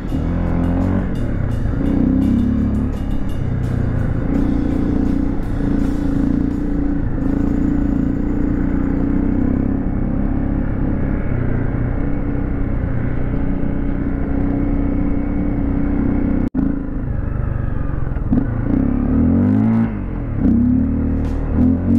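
Dirt motorcycle engine running steadily under way, its pitch rising and falling with the throttle over the last few seconds. The sound drops out for an instant about two-thirds of the way through.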